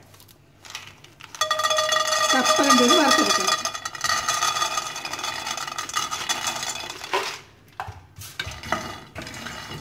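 Raw peanuts poured into a dry ceramic-coated frying pan, clattering onto it and setting the pan ringing for about five seconds, then a spatula scraping and stirring them around the pan for dry roasting.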